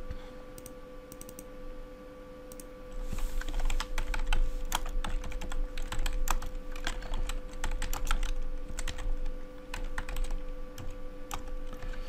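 Typing on a computer keyboard: a few single keystrokes, then a quick run of key clicks from about three seconds in, over a faint steady hum.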